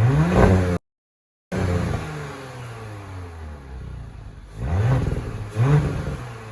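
2019 Audi SQ5's turbocharged V6 on its stock exhaust being blipped, each rev rising quickly and falling back to idle. One rev at the start cuts to total silence for under a second, then the engine settles at idle and is revved twice more in quick succession near the end.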